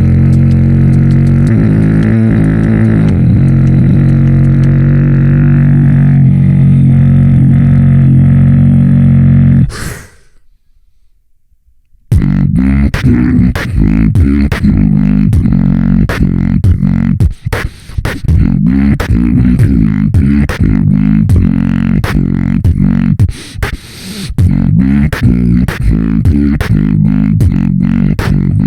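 Human beatboxing: a held, buzzing bass drone for about ten seconds, then a pause of about two seconds, then a fast rhythmic pattern of sharp mouth-made drum hits over a pulsing vocal bass.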